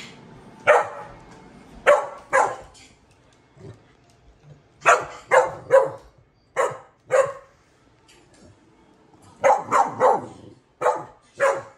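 Dog barking: about sixteen short, sharp, high barks in quick bursts of two to four, with pauses of a second or two between bursts.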